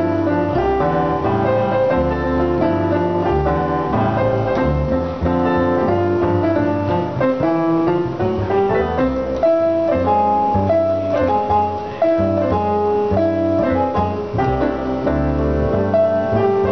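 Jazz piano and plucked upright bass duo playing a standard: a digital piano plays chords and melody over a plucked bass line.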